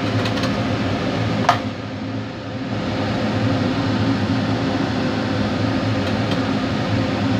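Steady mechanical hum with a hiss, like a fan or air conditioner running, with one sharp click about a second and a half in.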